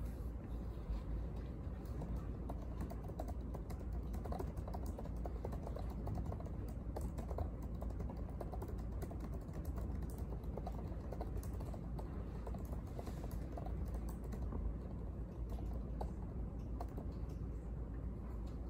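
Typing on a laptop keyboard: a steady run of soft key clicks over a low room hum.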